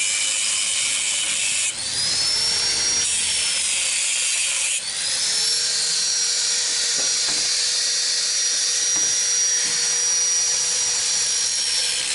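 Electric angle grinder running with a steady high whine as it cuts open the steel shell of a motorcycle muffler. Twice the sound dips briefly and the whine climbs back up.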